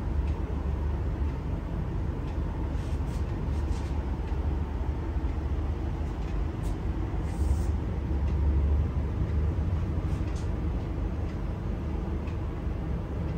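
Steady low background rumble, with a few faint brief rustling sounds.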